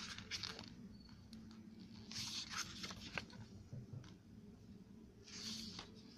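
Pages of a photobook being turned by hand: faint paper rustles and flicks, three times a couple of seconds apart.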